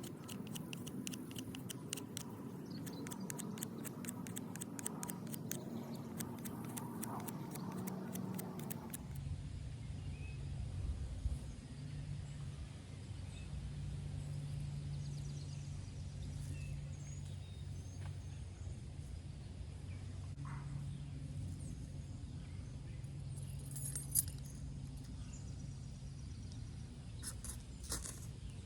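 Mora Companion knife blade, used as a draw knife, shaving dead dogwood in quick scraping strokes for about the first nine seconds. After an abrupt change there is only a faint steady low hum with a few scattered small ticks.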